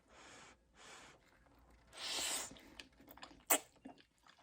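A person eating creamy pasta: three short airy sucks or slurps, the loudest about two seconds in, then a run of wet mouth clicks from chewing.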